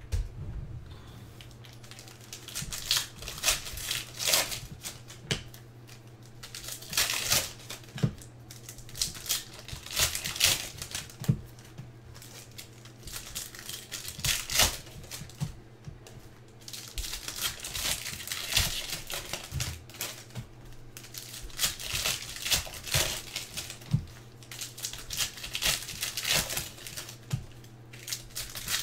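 Foil wrappers of 2017-18 Panini Select basketball card packs being torn open and crinkled by hand, in irregular bursts of rustling and crackling.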